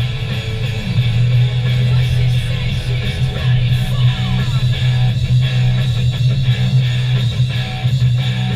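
Background music led by guitar, with a steady, loud low end.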